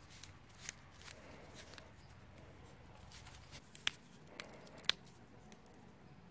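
Paper and cardboard of a firecracker's casing being picked and peeled open by hand: faint rustling with a few sharp clicks, the two loudest about four and five seconds in.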